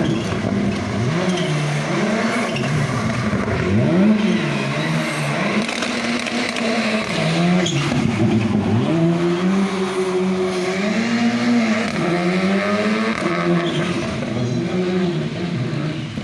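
Rally car engine run hard, its pitch rising and falling repeatedly every second or two as the throttle is lifted and reapplied.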